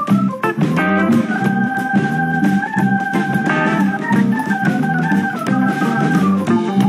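Background music: long held keyboard notes over a steady beat.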